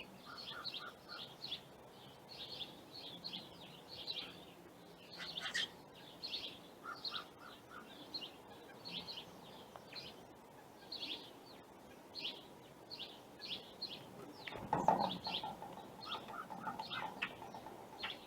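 Small songbirds chirping over and over in quick short notes, with a few lower chirp runs. About fifteen seconds in there is a louder, lower sound.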